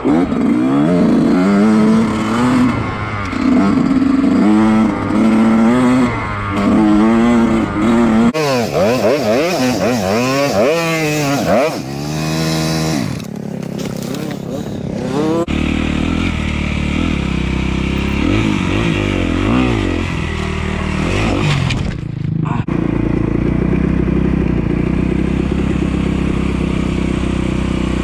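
Off-road dirt bike engines from a helmet camera: the engine revs up and down over and over, then revs very fast and wildly for a few seconds about halfway through, and after that a bike runs at a steadier pitch.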